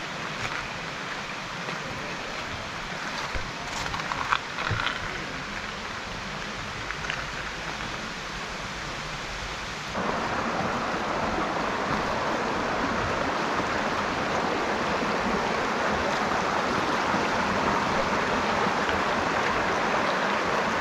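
Running water: a softer steady hiss with a couple of sharp knocks about four seconds in. About halfway through it changes suddenly to the louder, fuller rush of a rocky mountain creek spilling over stones where it feeds a mill's millrace.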